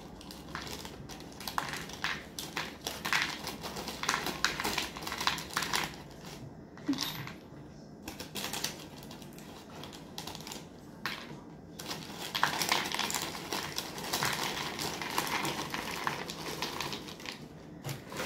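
Crinkling of a cereal box's plastic liner bag with small clicks of dry cereal pieces being picked out and dropped on a table, then a denser, louder rattle of cereal pouring into a plastic bowl partway through.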